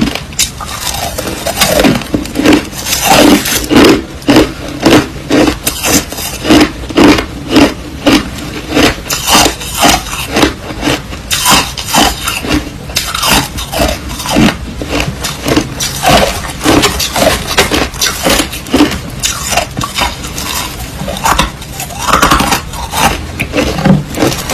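Close-miked crunching of white crushed ice being chewed, a steady run of crunches about two a second.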